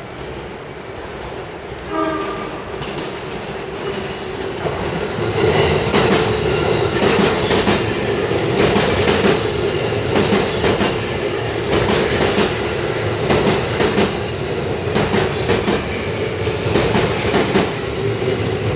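Tokyo Metro 16000 series electric train arriving at a station platform: a short horn blast about two seconds in, then wheels clacking over rail joints and points over a steady running hum, growing louder as the train comes in.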